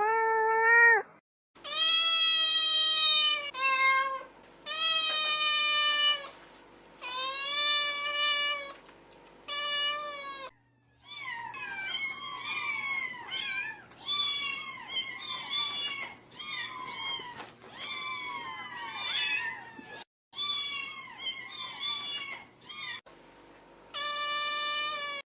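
Cats meowing: a series of drawn-out meows, then from about ten seconds in a busier run of shorter, higher-pitched kitten mews following close on one another, and a few more long meows near the end.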